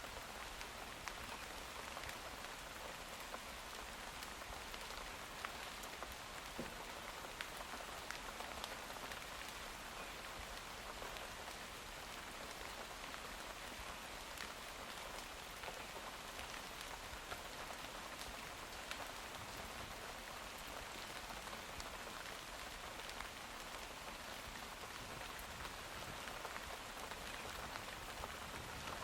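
Steady rainfall, with many sharp individual drops ticking through the even hiss.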